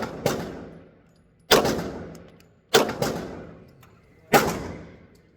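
Glock 47X pistol firing slow, aimed single shots, four or five of them spaced a little over a second apart, each followed by a ringing echo that dies away.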